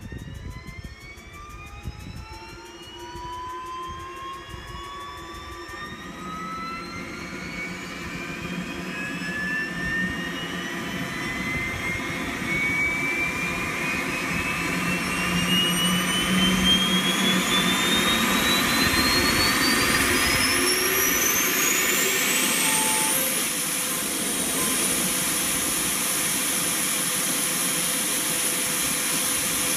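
Boeing 737-230 Advanced's auxiliary power unit, a small gas turbine in the tail cone, starting up. Its whine climbs steadily in pitch and grows louder for over twenty seconds as the turbine spools up, then levels off near the end into a steady high whine at running speed.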